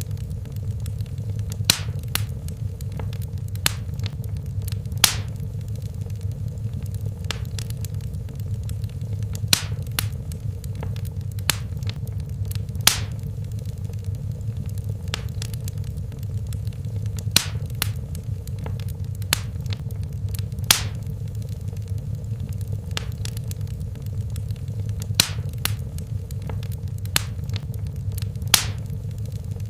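Wood fire burning in a fireplace: a steady low rumble of flames with sharp crackles and pops at irregular intervals, every second or two.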